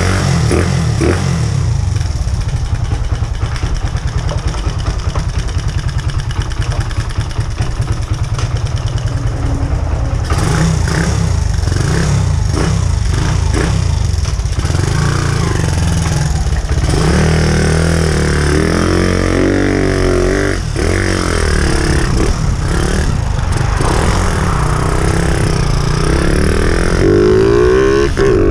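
Honda XRM 125 motorcycle's single-cylinder four-stroke engine, fitted with a 57mm big-bore kit, running on a road test. The engine note is fairly steady at first; from about two-thirds of the way in its pitch rises and falls repeatedly as it is revved and accelerated, and it climbs again near the end.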